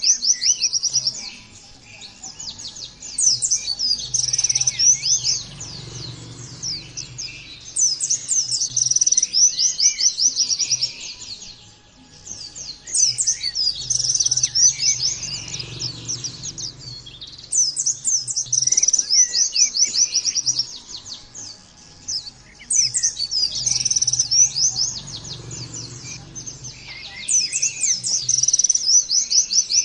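White-eye (pleci) singing: bursts of rapid, high-pitched chattering song about three seconds long, repeating roughly every five seconds with short pauses between them.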